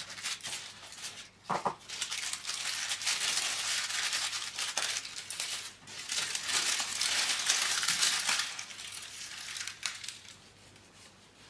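Baking parchment crinkling and rustling as it is peeled off the bottom of a freshly baked sponge cake. It comes in several long spells with short pauses and fades out near the end.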